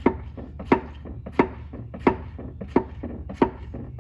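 BMW M3's clutch pedal being pumped to bleed the clutch hydraulics: a sharp clack at each stroke, about three every two seconds, over a steady low hum.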